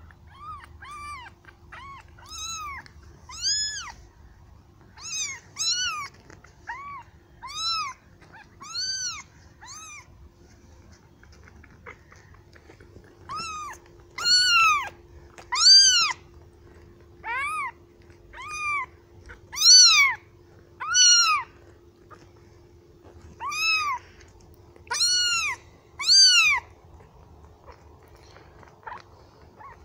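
Very young black-and-white kitten meowing over and over: about twenty loud, high-pitched cries, each rising then falling in pitch, with a short pause about ten seconds in. These are the kitten's distress cries calling for its mother.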